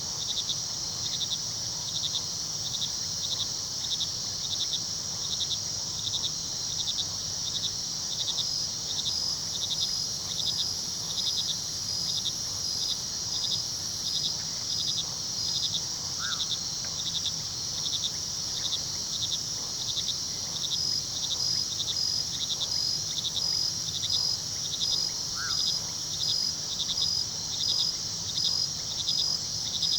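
Night chorus of crickets: a steady high trill with regular, evenly spaced chirping beneath it. Twice, a brief faint higher call rises above the chorus.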